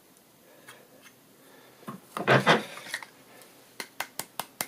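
Aluminium rail of a DRO glass scale scraping against a vise's wooden jaw pads as it is handled and drawn out, loudest about two seconds in. Near the end come about six quick, sharp clicks in a row.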